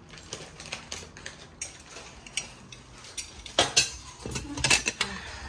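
Clinking and knocking of glasses and kitchen utensils being handled while cocktails are made, with a louder clatter about three and a half seconds in and again near the end.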